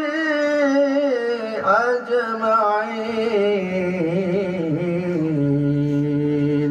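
A man chanting Arabic in long, ornamented melismatic phrases: the sung blessing on the Prophet that opens an Islamic marriage sermon. A second phrase begins about two seconds in, and the pitch falls step by step to a long held low note that stops near the end.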